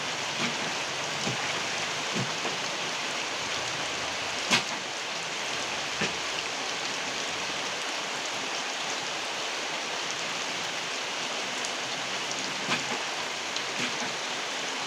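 Very heavy rain pouring steadily: a dense, even hiss with scattered sharp drop hits, the strongest about four and a half seconds in.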